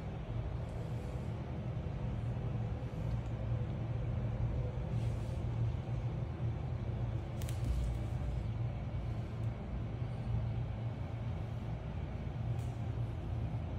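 Steady low background rumble, with a few faint brief hisses, the clearest about halfway through and near the end.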